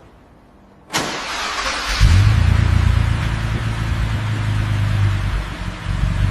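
Suzuki Bolan's engine started: a noisy rush of cranking about a second in, then the engine catches about two seconds in and runs steadily.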